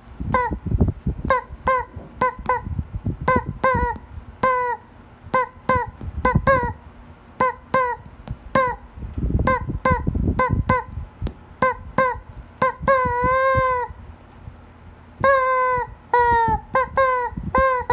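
Yellow rubber chicken squeeze toy squeezed over and over, letting out short pitched squeaks, mostly in quick pairs. From about two thirds of the way in, the squeezes get longer and the squeaks are drawn out with a wobbling pitch.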